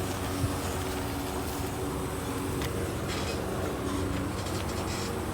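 A truck's engine running with a steady hum. It is louder than the electric dirt bike beside it.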